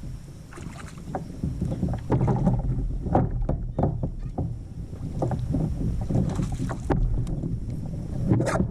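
Kayak on the water: irregular knocks and clatter against the hull over a low rumble of water and wind on the microphone.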